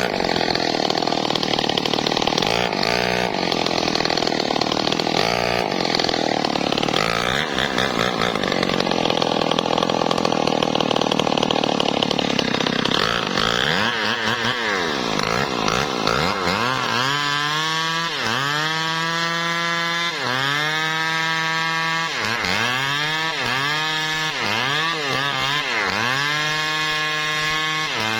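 Two-stroke chainsaw cutting wood under load for about the first half. Then it runs free and its engine is revved up and down over and over, the pitch dipping and climbing again each time.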